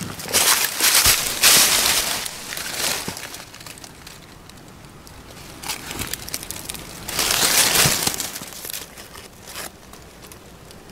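Dry fallen leaves rustling and crackling in bursts, loudest over the first two seconds and again around seven to eight seconds in.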